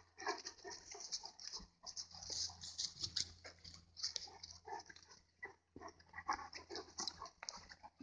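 Footsteps of a walker and Bernese mountain dogs crunching and rustling over dry leaves and twigs on a dirt trail: irregular short crunches, several a second.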